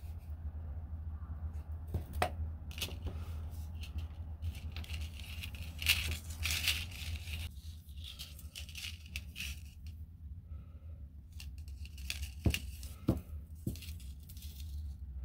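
Hands handling a roll of tape and silver craft wire: scratchy rustling near the middle, then a few light clicks of the wire near the end, over a steady low hum.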